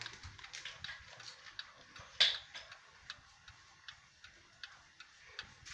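Ticking of an 1881 Ansonia cast iron mantel clock running, its patented open escapement beating in an even rhythm. One louder click comes about two seconds in.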